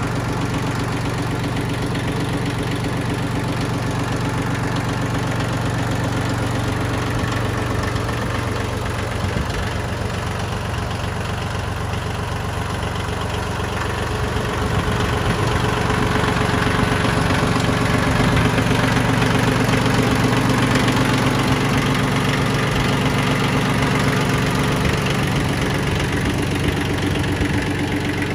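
Yanmar YM1610D compact tractor's diesel engine idling steadily, growing a little louder about halfway through.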